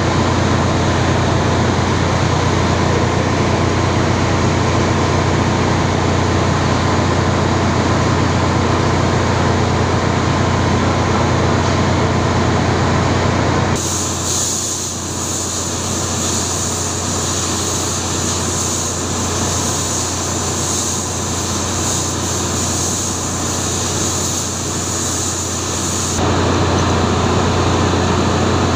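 Steady, loud drone of ship engine-room machinery with a constant low hum. For about twelve seconds in the middle it turns to a hissier, higher noise, then the steady drone returns.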